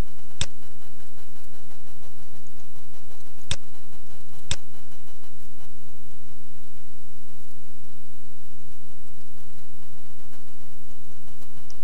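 Steady electrical mains hum, with three sharp computer-mouse clicks: one under a second in, then two about a second apart around three and four seconds in.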